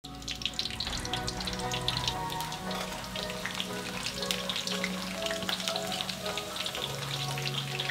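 Battered fish tempura frying in hot oil in a pan, a steady crackling sizzle, with background music underneath.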